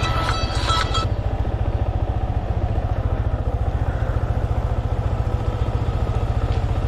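Yamaha MT-15's single-cylinder engine running steadily with an even low pulse. A short tune ends about a second in.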